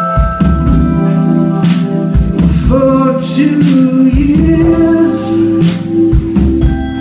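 Live band playing a neo-soul song: electric guitars, keyboard and drum kit, with a man singing a held, wavering vocal line over it in the middle.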